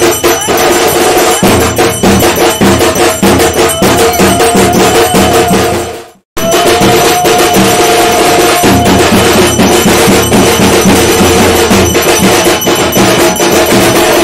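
Dhak drums beating fast and loud over a steady droning tone. The sound cuts out briefly about six seconds in and resumes.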